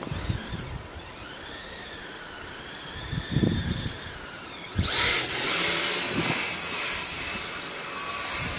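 The RC snowcat's pair of brushless electric motors whines at part throttle, the pitch wavering up and down. About five seconds in they jump to full throttle, with a louder high whine and hiss that holds. A low thump comes about three seconds in.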